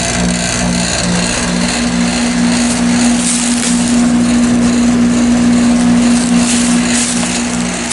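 Outdoor air-conditioning unit running in cool mode: the compressor's steady hum, with a second tone throbbing about twice a second, under the rush of the condenser fan.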